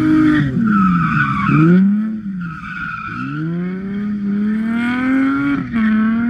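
Drift car's engine revving hard as it slides through a corner on wet pavement, its pitch dropping sharply about half a second in and again around two seconds in, then climbing steadily, with the tyres skidding beneath it.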